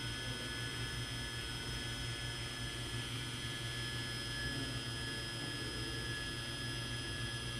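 Electric 24 VAC valve actuator running its motor and gear train at a steady pace as it turns the ball valve, a high whine of several fixed tones over a low electrical hum.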